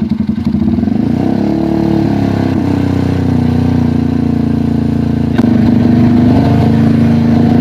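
Motorcycle engine running through an aftermarket exhaust, idling with a short rev that rises and falls a second or two in. About five seconds in there is a click and it steps up to a louder, steady, higher-pitched running.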